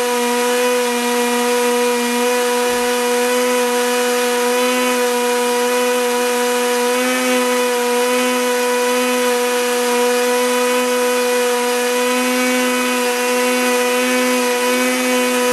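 A Blendtec blender motor runs steadily on high, its blade grinding wheat flour finer in an Alterna Jar on a second pass. It makes a loud, constant whine that holds one pitch throughout, with rushing grit over it.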